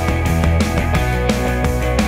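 Background music with a steady beat, about four hits a second.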